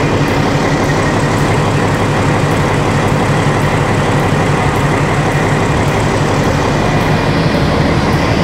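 PKP SU45 diesel locomotive's Fiat V12 diesel engine idling up close, a loud, steady, rapid low throb.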